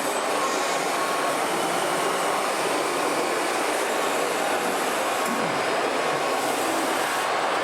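Radio-controlled model trucks and construction machines running, a steady mechanical whirr of small electric motors and gearing with faint steady whining tones.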